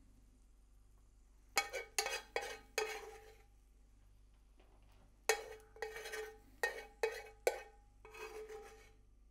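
A metal spoon scraping and clinking against a cast-iron skillet as fried onions are spooned out. The clinks come in two bunches, about a second and a half in and again from about five seconds in, each with a short ring.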